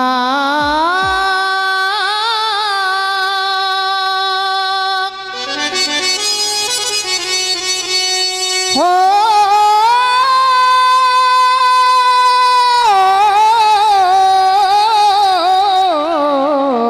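Bhajan music: a harmonium sustains steady notes while a man sings long drawn-out notes without words into the microphone. About nine seconds in his voice slides up into a long, wavering held note.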